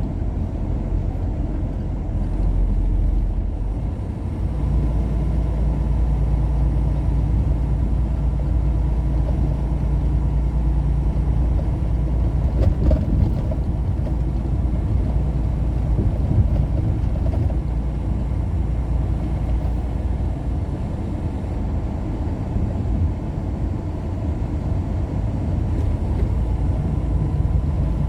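Steady low rumble of a motor vehicle driving on the road, engine and road noise together, growing heavier about four and a half seconds in.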